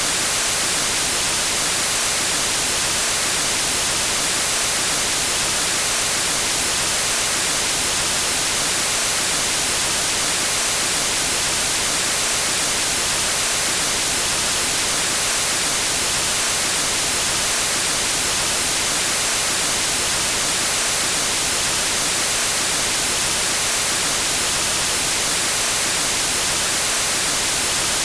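Television static: a steady, unchanging hiss of white noise, strongest in the treble.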